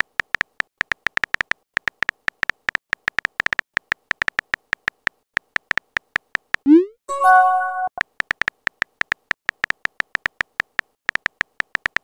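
Rapid phone-keyboard tap clicks, about five or six a second, as a text message is typed. About seven seconds in, a short rising whoosh and a bright multi-note chime mark the message being sent; then the tapping resumes, and another whoosh begins at the very end.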